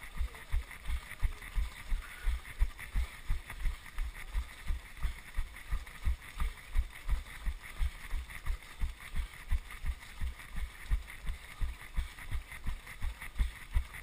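Running strides: low, even thuds about three a second as each footstrike of the runner wearing a GoPro jolts the camera, over a faint hiss of wind and the pack's footsteps.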